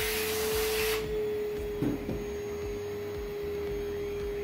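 Vacuum cleaner picking up plastic balls, running with a steady hum. A hissy rush of air stops about a second in, and a light knock follows near the two-second mark.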